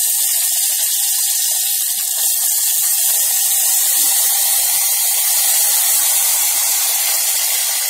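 Wet tomato-onion masala paste sizzling in hot oil in an aluminium pressure cooker, a loud, steady hiss of frying as it is stirred.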